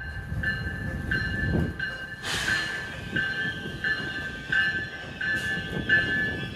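Locomotive bell ringing at an even pace, about nine strokes, over the low rumble of a train, with a short hiss about two seconds in.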